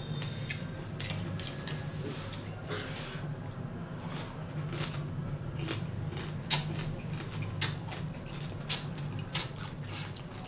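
Close-up eating sounds: chewing and sucking on salted ba khía crab from a spicy salad, with a handful of sharp clicks and crunches, the loudest in the second half. A steady low hum runs underneath.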